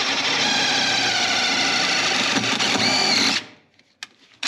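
Power drill running steadily, boring a pilot hole for a self-tapping screw; it runs for about three and a half seconds and then stops.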